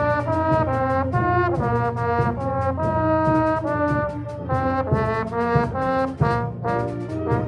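Brass ensemble, trombones with trumpets, playing a fanfare: a run of short, quickly changing notes and chords.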